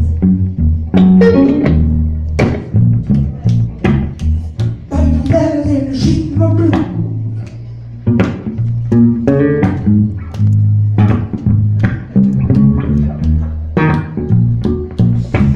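Blues band playing live: plucked guitar notes with some bent, gliding pitches over a steady bass guitar line.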